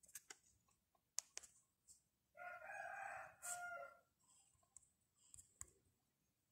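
A faint, drawn-out animal call heard once, about two seconds in and lasting about a second and a half, with a few faint clicks before it.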